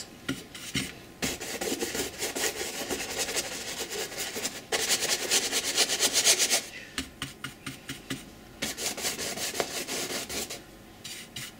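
A flat paintbrush dry-brushing white acrylic paint across a textured canvas, in rapid scratchy back-and-forth strokes. The strokes are loudest about five to six and a half seconds in, then grow lighter and ease off near the end.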